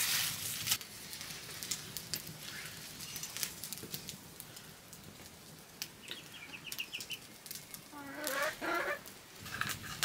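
A chicken clucking, with a louder call of several notes about eight seconds in, over faint scattered clicks.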